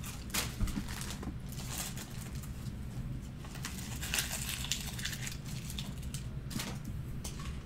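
Faint scattered clicks and rustles of small objects being handled, over a steady low electrical hum.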